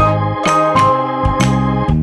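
Background music: a tune of quick, evenly struck notes over a bass line, with an organ-like keyboard tone.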